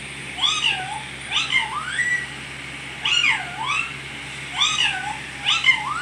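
Pet parrot making a string of short meow-like calls, roughly one a second, each dipping and then rising in pitch.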